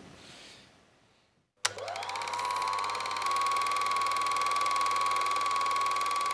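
Film projector switching on about one and a half seconds in: its motor whine rises quickly and settles at a steady pitch, over a fast, even mechanical clatter and a low hum.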